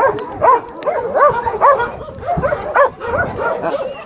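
Several dogs barking and yipping in quick, short, high calls, many of them overlapping.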